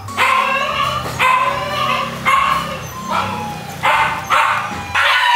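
Siberian husky puppy crying out during a bath, a run of short, high cries that bend in pitch, about one a second.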